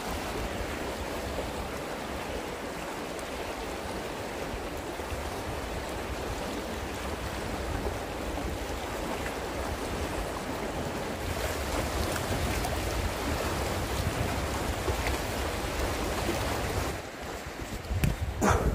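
A river rushing steadily, with some wind on the microphone. Near the end the noise drops briefly and a short, louder sweep of noise follows.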